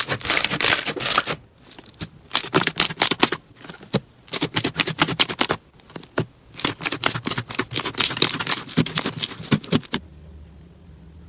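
Slime being squeezed and worked, giving runs of rapid crackling and clicking in four bursts with short pauses between. Near the end the crackling stops and only a low hum remains.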